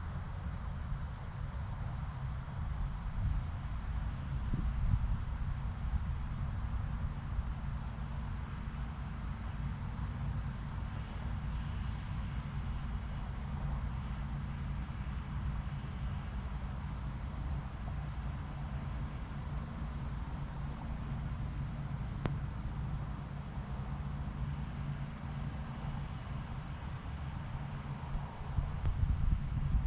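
Insects chirring steadily in a high, even drone over a constant low rumble.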